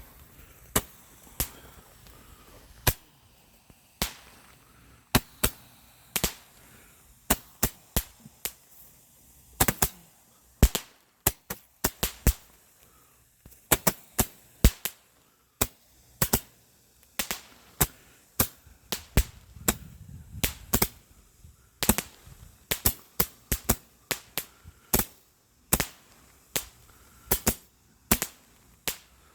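Fireworks going off: a long run of sharp, irregular bangs, one to three a second, each with a short echo.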